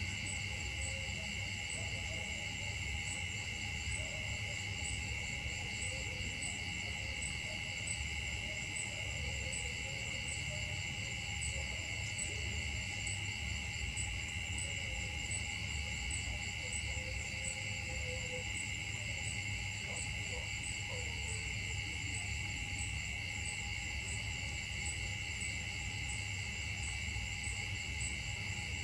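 A steady chorus of insects in the forest canopy: a shrill, unbroken drone on several high notes with a fine, even pulse, over a low rumble.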